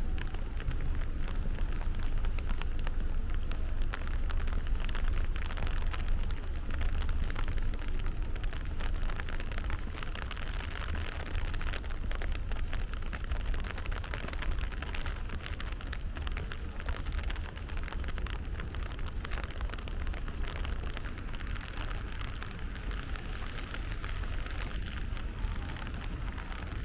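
Heavy rain falling, a dense steady patter of drops hitting surfaces, over a low rumble underneath.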